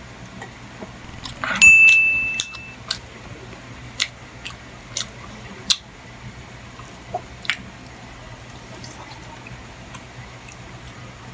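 An eating utensil striking dishware with a ringing clink about one and a half seconds in, the loudest sound, followed by several sharp light taps and clicks over the next six seconds, over a steady low hum.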